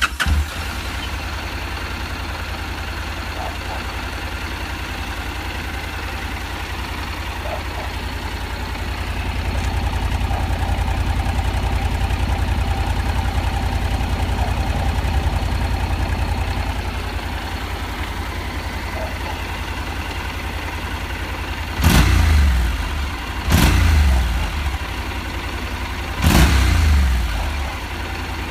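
Honda NC750X's parallel-twin engine idling steadily through its exhaust, a little louder for several seconds in the middle. Near the end the throttle is blipped three times, each rev rising sharply and falling back to idle.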